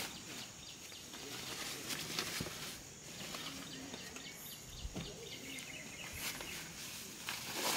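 A fabric duffel bag being handled in a car boot: scattered rustles and a few soft knocks as it is shifted about, over faint outdoor background noise.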